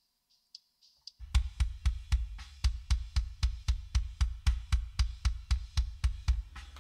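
Kick drum track played back on its own: a fast, even run of kick hits, about four or five a second, each a deep thump with a click on top. It starts about a second in and plays through an EQ that cuts back the kick's attack to tame its plasticky click.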